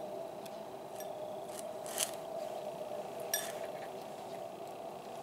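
Cat eating wet food from a plate: moist chewing and licking with about five short, sharp clicks against the dish, the strongest about two and three and a half seconds in, over a steady hum.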